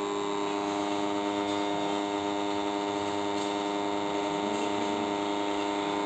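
Bajaj wall-mount fan's motor running on power from a UPS inverter, giving a steady electrical buzz with many evenly spaced overtones. The buzz comes from the UPS supply and is not a fault in the fan.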